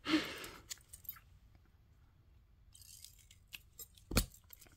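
Hands handling a small paper tag and clear sellotape: a short rustle at the start, then faint crinkles and light clicks, and one sharp tap about four seconds in.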